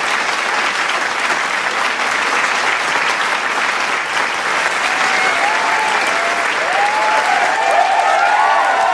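Large crowd applauding steadily, with cheering and shouting voices joining in about halfway through and growing toward the end.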